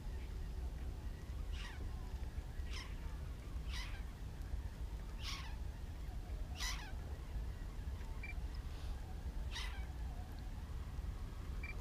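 A bird calling repeatedly, about seven short, downward-sliding, mewing calls spaced a second or so apart, over a steady low rumble.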